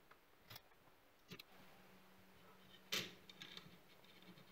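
Near-quiet handling of small parts: a few faint clicks as small metal washers are picked up by hand, and a brief louder rustle or tap about three seconds in.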